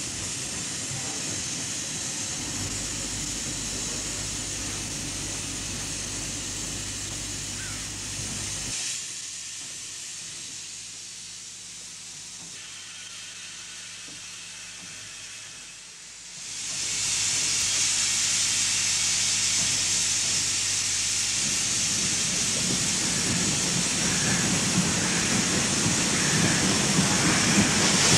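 Train sounds from a film soundtrack: a steady hiss over a low, even drone. It drops back about a third of the way in and returns louder a little past halfway, the hiss strongest in the last part.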